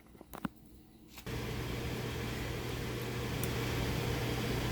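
A few light handling clicks, then about a second in a steady machine noise with a low hum switches on abruptly and keeps running, as an air conditioner does when it kicks on.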